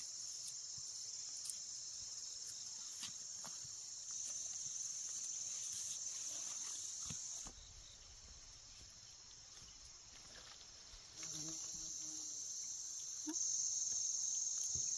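Insects chirring in a steady high-pitched drone. It drops in level about halfway through and comes back louder near the end.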